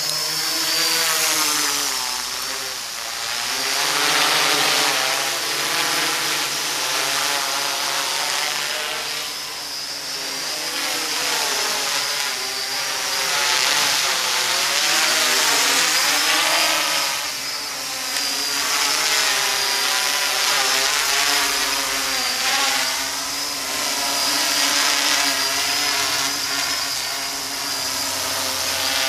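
MikroKopter MK02 quadcopter's four brushless motors and propellers buzzing in flight, a chord of several tones that wavers up and down in pitch as the motor speeds keep changing, over a high, thin whine. The loudness swells and dips.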